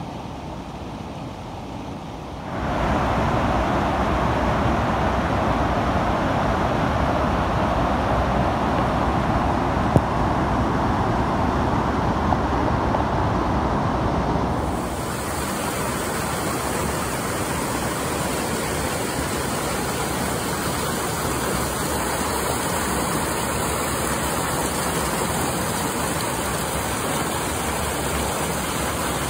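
Rushing water: a waterfall, stepping up to a louder whitewater river rush about two seconds in, then, about halfway through, the brighter, hissier sound of a shallow stream running over rock ledges.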